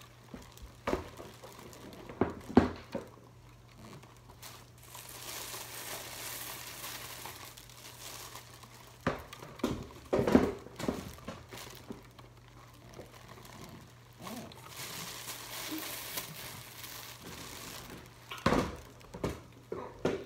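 Plastic shopping bag crinkling and rustling as handfuls of hamster bedding are scooped out of a clear plastic cage and stuffed into it, in two longer spells of rustling. Several sharp knocks of hands and a plastic toy against the cage come in between.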